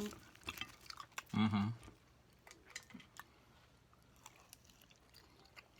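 A person chewing food with wet mouth clicks, and a short closed-mouth "mm" hum about a second and a half in; the chewing grows fainter after about three seconds.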